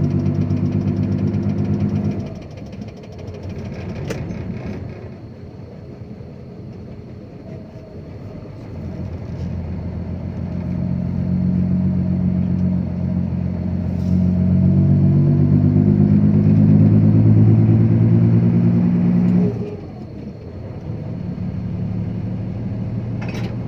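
Dump truck's diesel engine under way: it pulls loudly for about two seconds, then eases off, builds up again over several seconds to a loud steady pull, and drops back sharply near the end.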